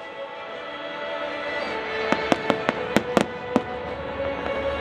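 Aerial firework shells bursting: a quick run of about eight sharp bangs starting about two seconds in, with music playing throughout.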